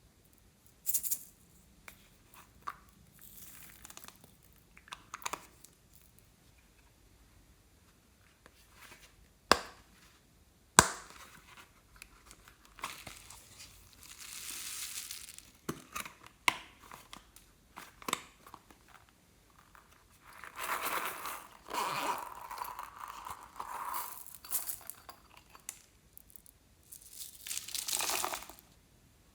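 Hands working slime and its add-ins: irregular crinkling and tearing sounds, with two sharp clicks about nine and a half and eleven seconds in and a longer stretch of squishing and crackling near the end.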